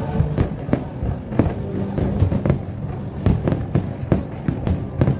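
A fireworks display: aerial shells bursting in a rapid, irregular barrage of sharp bangs, several a second, over a continuous low rumble.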